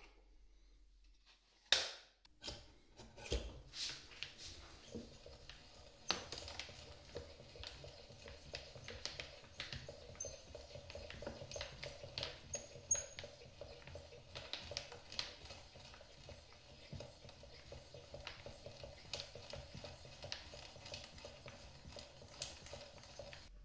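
Hand brace turning an auger bit through a metal doweling jig into the edge of a white oak board: a continuous rasp of the bit cutting, dotted with many small clicks and knocks. It starts about two seconds in, after a single sharp knock, and stops just before the end.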